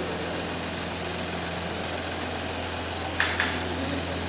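A steady low hum under an even background noise, broken by two short sharp clicks a little past three seconds in.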